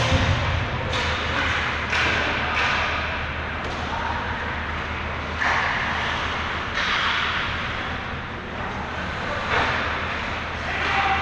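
Ice hockey play in a rink: a puck and sticks knocking against the boards, glass and ice at irregular intervals, several times, over steady arena noise.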